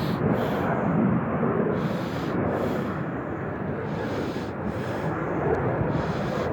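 Wind buffeting the microphone: a steady low rumble with gusts that come and go.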